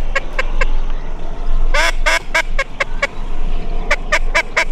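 Duck call blown in descending runs of loud hen-style quacks. One run ends in the first half second, another starts about two seconds in with long notes that get shorter and quicker, and a faster run of about four quacks a second starts near the end. A low wind rumble sits underneath.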